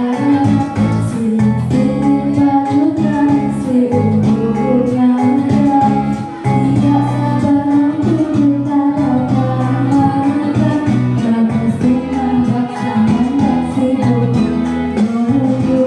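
A girl singing a song into a handheld microphone over accompanying music with guitar.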